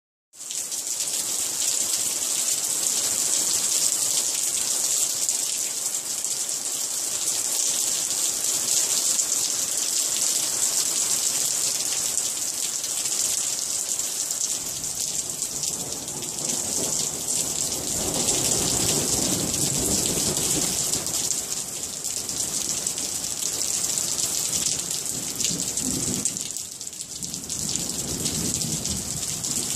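Steady hiss of rain falling, with a deeper rushing that swells up about halfway through and again near the end.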